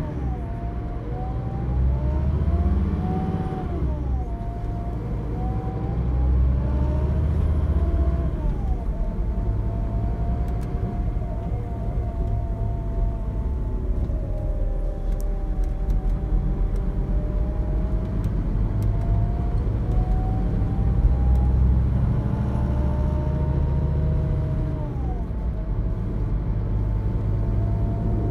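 Scania K360 coach's nine-litre five-cylinder diesel heard from inside the passenger cabin, pulling through the gears over a steady road rumble. Its whine climbs in pitch and drops sharply at each of three gear changes, then rises and falls gently while cruising.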